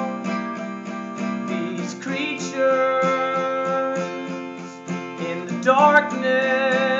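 Acoustic guitar strummed in a steady rhythm while a man sings long held notes with vibrato, a new phrase coming in about two seconds in and another near the end.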